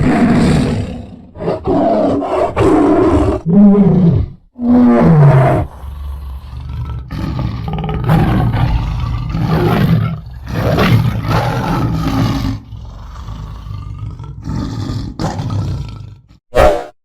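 Tiger roaring and growling: a run of rough calls with brief breaks. Two calls about four and five seconds in carry a clear pitch that falls away, and a last short growl comes near the end.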